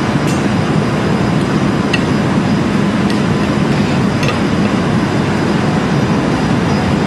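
Steady rushing background noise of a commercial kitchen, with a few faint light clicks as the meringue-topped dessert is handled.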